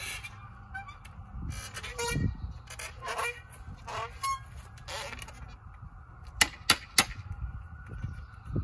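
Hammer knocking on a straight wooden board laid across a split cedar log, with clattering and scraping as the board is handled between strikes. The three loudest knocks come in quick succession about six and a half seconds in.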